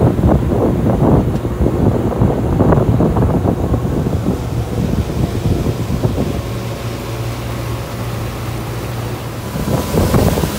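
Powerboat's Volvo Penta 5.0 V8 engine running steadily under way, with wind buffeting the microphone heavily in the first few seconds and again near the end.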